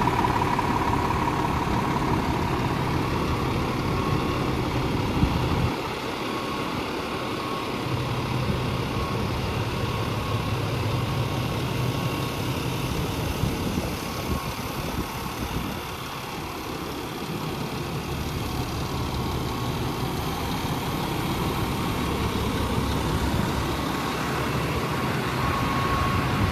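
Scania R450 truck's 13-litre straight-six diesel idling steadily, with a faint thin whine above the engine note.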